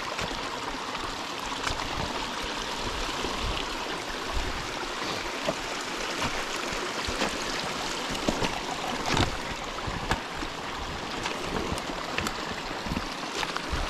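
A small creek running steadily, a constant rush of water, with scattered sharp clicks and knocks over it.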